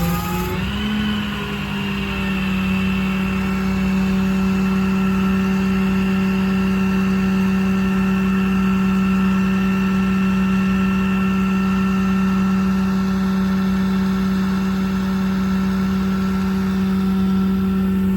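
The service truck's crane and its hydraulic drive running: a steady droning hum that steps up slightly in pitch about a second in, then holds even.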